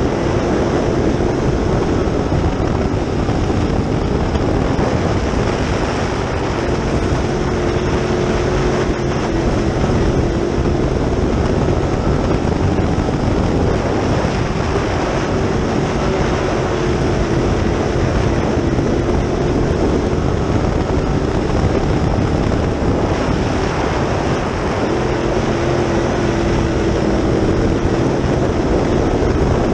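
Dirt late model race car's GM 602 crate small-block V8 running at racing speed, heard from inside the cockpit as a loud, steady din. The engine note swells and eases every several seconds.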